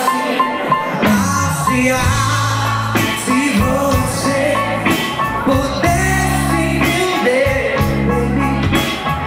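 Live MPB band playing: long held bass notes under drums and percussion, with keyboard and a melody line that bends up and down over the top.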